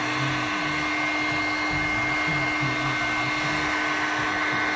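Electric heat gun running steadily: a constant fan whine over a rush of blown air. It is heating shoe-polish wax on a marble clock case to melt it.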